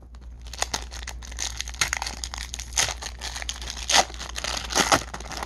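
Wrapper of a baseball card pack crinkling and tearing as it is pulled open by hand, with a few sharper crackles along the way.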